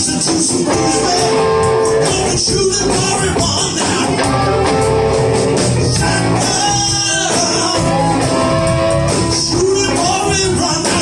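Live blues band playing: drums, bass and electric guitar keep a driving rhythm under sustained, bending lead melody lines.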